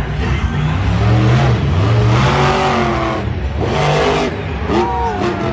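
Engine sound effect for a monster truck, revving several times with its pitch rising and falling.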